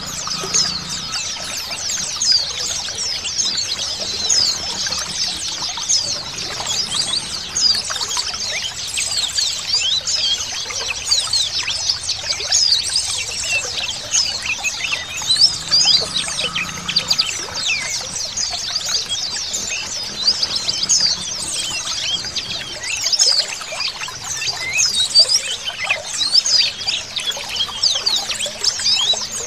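Many white-eyes (pleci) chirping and twittering together, a dense run of rapid high calls that overlap throughout, over a steady trickle of running water.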